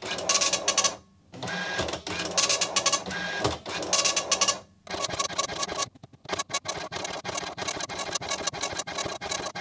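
Commodore MPS 1500C colour dot matrix printer printing a test page. For about the first five seconds its print head buzzes across the paper in stretches of one to two seconds with brief pauses; after that it switches to a fast run of separate clicks.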